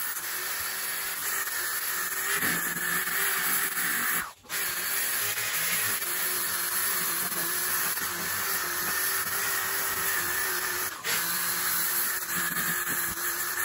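Corded random orbital sander running steadily, sanding a wooden slab whose cracks are filled with cured epoxy. The run breaks off for a moment twice, about four and a half and eleven seconds in.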